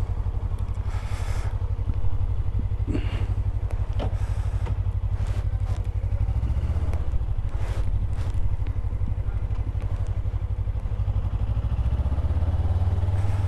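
2018 Suzuki GSX250R's parallel-twin engine running at low speed as the motorcycle pulls away and rolls along, with a few light knocks.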